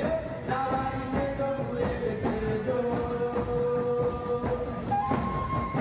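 Background music: long held melody notes over a steady percussion beat.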